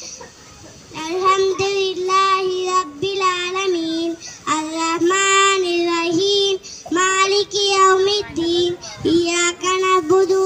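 A young boy singing solo into a microphone, unaccompanied, in held phrases with short breaks. The singing starts about a second in.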